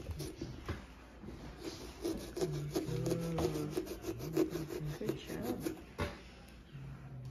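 Small serrated pumpkin-carving saw sawing back and forth through a pumpkin's rind, a quick run of rasping strokes that is busiest through the middle and stops about six seconds in.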